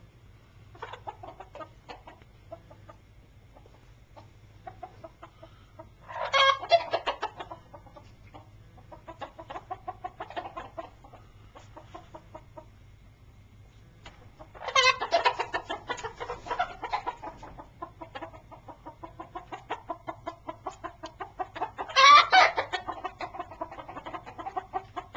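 Yellow Leg Hatch gamefowl chickens on a roost clucking in runs of short repeated notes. Three louder calls stand out, about eight seconds apart.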